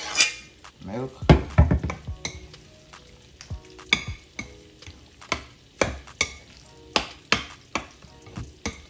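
Metal spoon stirring and mashing cauliflower with milk in a glass bowl: wet squelching with irregular clinks and knocks of the spoon against the glass, about one or two a second.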